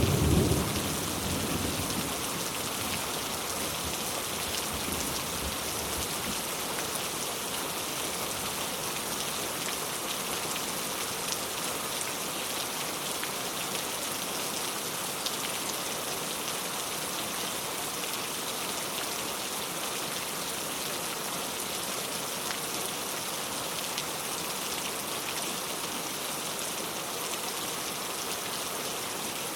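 Heavy rain falling steadily, an even hiss of dense drops. Right at the start there is a brief low rumble that fades within about two seconds.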